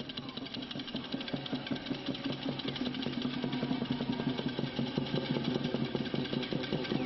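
A matraca, the wooden Holy Week clapper-rattle, clattering in a rapid, continuous stream of clicks that grows steadily louder.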